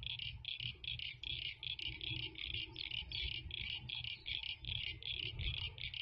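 Crickets chirping in a steady, even rhythm of about five high chirps a second, over a low rumble.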